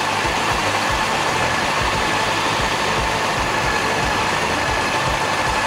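Honda CB400 Super Four's inline-four engine running at steady revs while riding, under a steady rush of wind and road noise.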